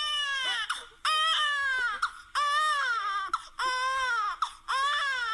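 A baby crying in a run of five wails, each a little under a second long and sliding down in pitch, with short breaths between them.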